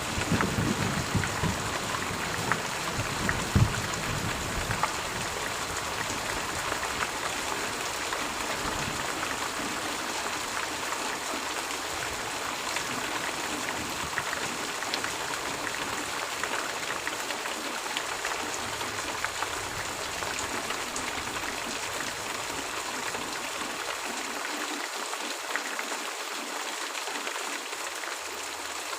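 Gentle steady rain falling as an even hiss with scattered single drop ticks. A low rumble under it in the first few seconds dies away.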